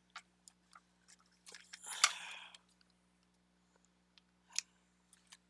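Scissors cutting a piece of ribbon trim: a few light clicks, then a crisp crunching cut lasting about a second, with one more click near the end.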